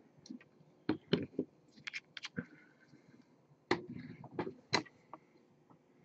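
About a dozen light, irregularly spaced clicks and taps from handling hobby paint supplies, with a small cluster of them around two seconds in.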